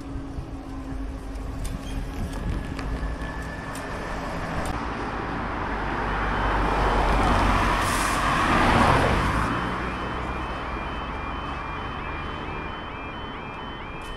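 Cars passing close by over the crossing, loudest about halfway through; then the level crossing's audible warning alarm starts, a repeating warble about two to three times a second, as the road lights change from amber to red.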